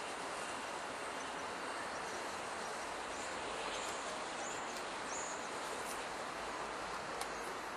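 Steady outdoor background hiss with no distinct nearby source, and a few faint high chirps about halfway through.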